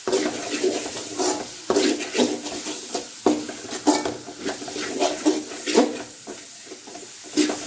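A spatula scraping and knocking irregularly against a large aluminium pan as a thick onion-tomato masala is stirred and sautéed, with frying oil sizzling underneath.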